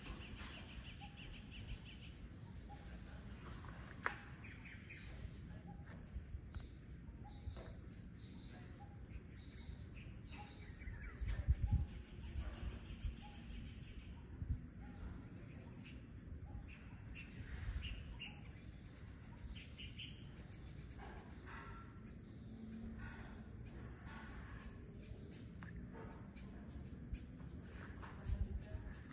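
Faint outdoor evening ambience: scattered bird calls and chirps over a steady high-pitched drone, with a few low thumps about eleven seconds in and again near the end.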